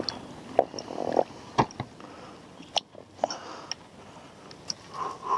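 Scattered sharp clicks and knocks with soft wet squelching, from a landing net full of weed and an inflatable boat being handled in shallow water.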